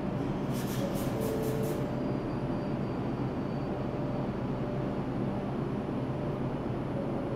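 New York City subway train standing at the station, its equipment giving a steady low hum with a faint steady tone over it. About half a second in comes a quick run of about five short hissy pulses.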